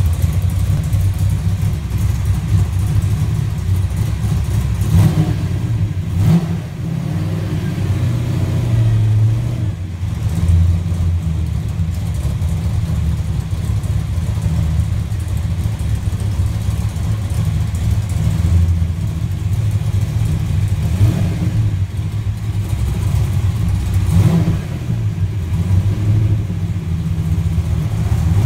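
Ford Fox-body Mustang's engine running at idle with an uneven low rumble from the exhaust, blipped a few times with short revs.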